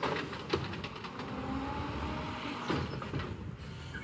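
Automated side-loader garbage truck at work: the engine rumbles while the hydraulic arm lifts and tips a bin, with creaking, a faint hydraulic whine and a few sharp clanks.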